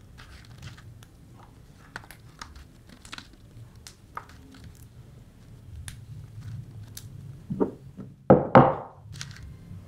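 Fresh red chillies being handled by hand: small crisp snaps and rustles as the stems are pinched off. Near the end come a couple of louder knocks and a scrape on the stone mortar as the pestle is lifted and the chillies are dropped in.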